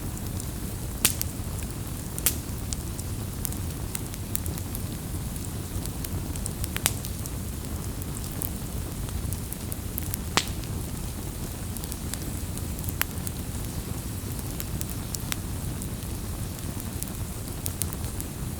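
Wood campfire burning: a steady low rumble and hiss of the flames with sharp, irregular crackles and pops.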